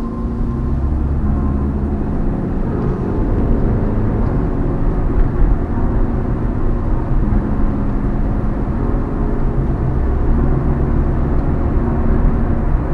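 Motor vehicle driving: a steady low rumble of engine and road noise.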